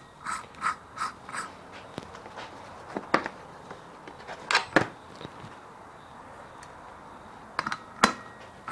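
Light clicks and metallic clinks of hand tools and engine parts being handled while fitting the clutch basket nut of a KX250 two-stroke engine. A quick run of about four clicks comes at the start, then a few scattered sharper knocks.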